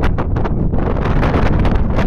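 Wind buffeting the microphone in loud, uneven gusts on an exposed hilltop.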